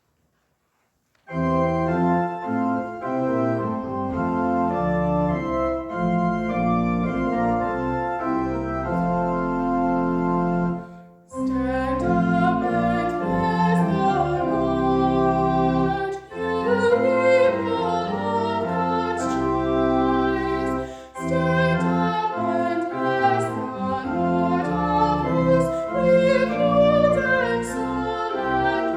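Organ music starting a little over a second in after a short silence, sustained chords moving from one to the next, with a brief break in the sound about eleven seconds in.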